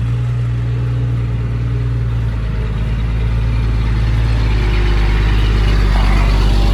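Diesel engine of a heavy earthmoving machine running steadily under load, with a deep, even drone that grows slightly louder over the last few seconds.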